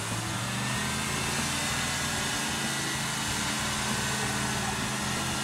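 Rock-crawler buggy's engine running steadily at low revs as it crawls on rock, with a faint high whine that slowly falls in pitch.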